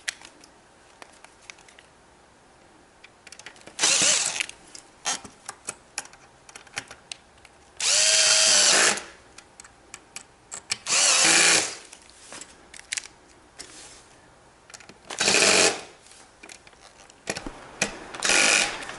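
Ryobi cordless drill-driver driving screws into a wooden keyboard-stand panel, run in five short bursts. The longest, about a second long some eight seconds in, carries the motor's whine. Small clicks and knocks of handling fall between the bursts.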